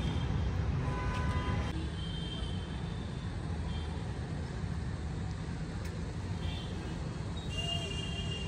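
Steady low rumble of distant city traffic, with a brief horn-like tone about a second in and faint thin high tones now and then.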